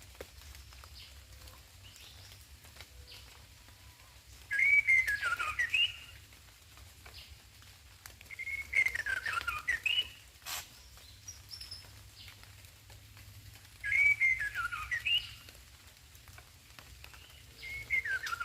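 White-rumped shama (murai batu) singing four short, whistled, warbling phrases, each a few seconds apart. A single sharp tap comes about ten seconds in.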